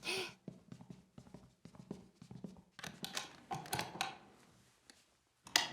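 Light, irregular clicks, taps and rustles of small objects being handled.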